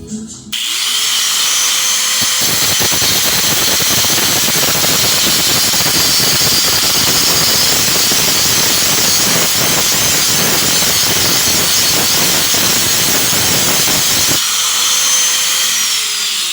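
Electric grinder spinning up, then cutting into metal exhaust parts with a steady loud grinding and high whine for about twelve seconds, then winding down near the end.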